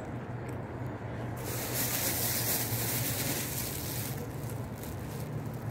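Steady background noise with a constant low hum underneath; the hiss grows fuller for a couple of seconds in the middle, with no distinct event standing out.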